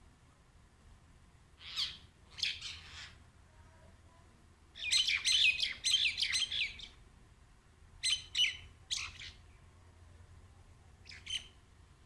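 Common mynas calling in short bouts of rapid, repeated notes. The longest and loudest run comes from about five to seven seconds in, with a brief single call near the end.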